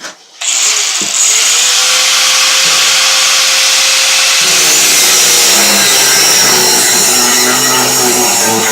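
Angle grinder cutting through a stuck metal wheel fitting on a child's wagon axle: a loud, steady grinding hiss with a high whine, starting about half a second in.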